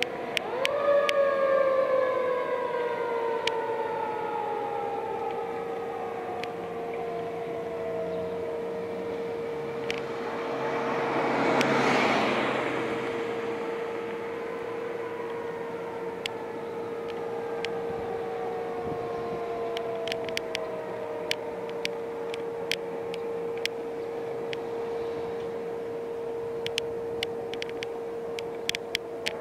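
Fire truck's mechanical siren winding up quickly, then coasting down in a long falling wail; later it falls away in a second long wail. A steady tone runs underneath, and a broad rush of noise swells and fades about midway.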